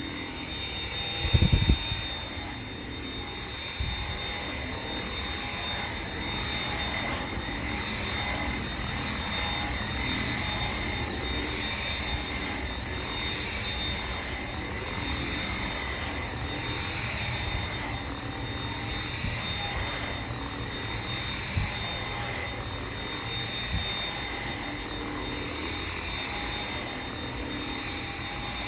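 Dyson V7 cordless stick vacuum running with its motorhead brush on carpet: a steady high motor whine that swells and fades about every second and a half to two seconds as the head is pushed and pulled. The motor pitch holds steady on the battery. A single knock comes about a second and a half in.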